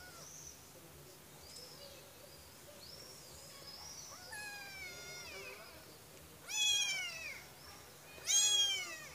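Very young kitten meowing: faint high mews, then a longer meow about halfway through, then two loud rising-and-falling meows near the end.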